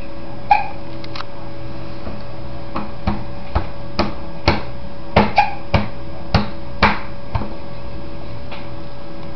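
A baby slapping a tabletop with an open hand: about a dozen sharp smacks, a few at first, then quick ones one after another through the middle.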